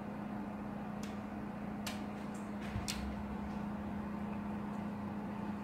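Steady low hum, with three light ticks about a second apart as a silicone pastry brush dabs olive oil onto potato slices on a foil-lined baking sheet.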